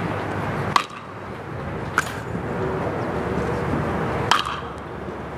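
Metal baseball bat striking pitched balls: three sharp pings, the first the loudest, over steady outdoor background noise.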